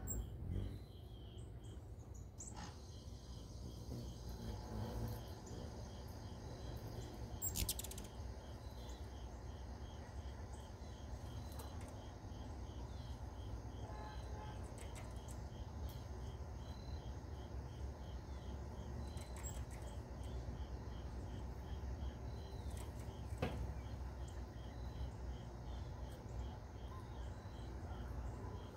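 Insects chirping in an even, repeating pulse, over a low steady outdoor rumble. There are a few sharp clicks, the loudest about a third of the way in and again near the end.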